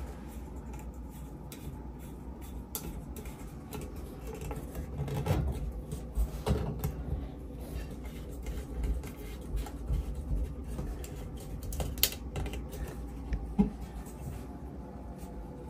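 Plastic sink drain pipe and P-trap parts being handled, fitted and tightened: scattered light clicks, scrapes and knocks, with a few sharper knocks.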